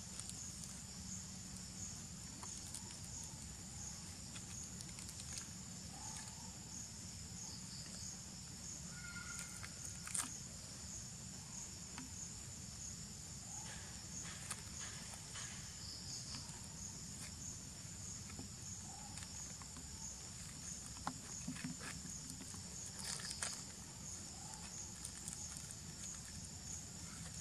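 Steady high-pitched chirring of insects in the grass, with occasional short crinkles and clicks as a young long-tailed macaque handles a plastic snack wrapper.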